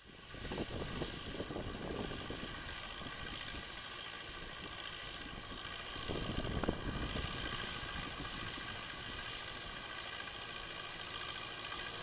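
Massey Ferguson 4299 tractor and John Deere 592 round baler running steadily in the distance. Gusts of wind rumble on the microphone, strongest about a second in and again around six to seven seconds.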